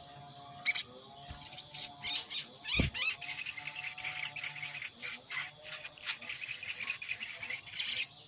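Sogon (sogok ontong, a spiderhunter) calling, as used in a lure recording for trapping: a few sharp high notes about a second in, then a fast chattering run of chips from about three seconds. A single low thump just before the chattering begins.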